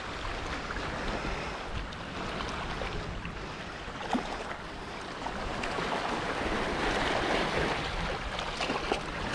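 Sea waves washing against the shore: a steady wash with some wind on the microphone and a couple of faint knocks.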